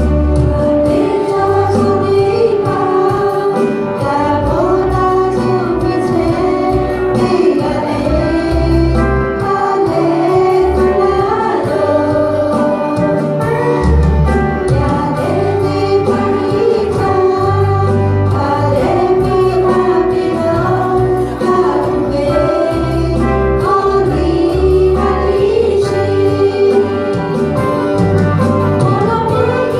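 Women's choir singing a song together through microphones, over an instrumental accompaniment with a steady, repeating bass line.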